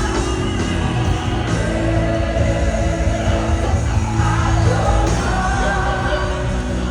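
Live gospel worship music: singing voices over a band with a steady bass line, loud and continuous.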